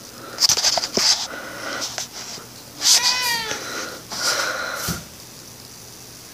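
Tabby house cat meowing at close range: several separate cries in the first five seconds, the clearest about three seconds in, drawn out and falling in pitch.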